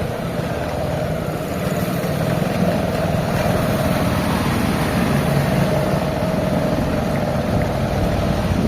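A motor vehicle engine running steadily, with road noise.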